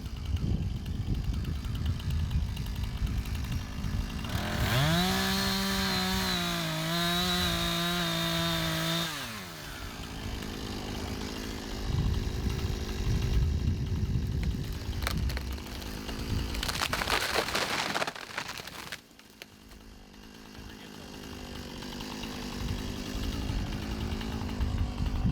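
Husqvarna 460 Rancher two-stroke chainsaw at full throttle in a cut for about five seconds, its pitch wavering slightly under load, then dropping away. Low wind rumble fills the rest.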